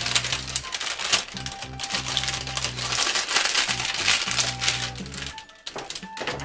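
Baking parchment paper crinkling as it is folded over a warm slab of seed brittle and pressed down by hand, dying away after about five seconds. Background music plays under it.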